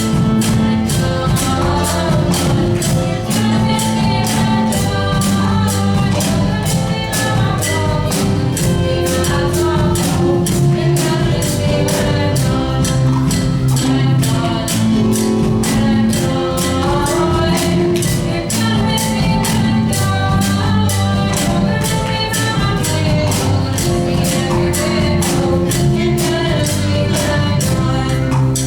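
Band music with singing, carried by a steady, rapid high percussion beat over sustained bass and melody notes.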